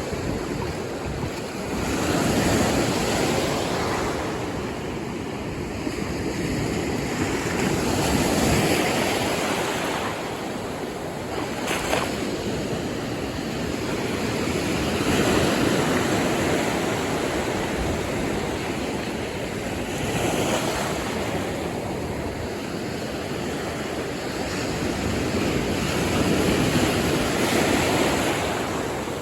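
Ocean surf on a sandy beach: waves breaking and washing in, swelling and ebbing about every six seconds, with some wind. A single sharp tick about twelve seconds in.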